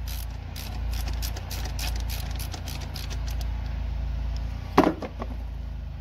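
Hand ratchet with a 10 mm socket clicking in quick, uneven runs as a small bracket screw is backed out. Near the end comes a single sharp metallic knock.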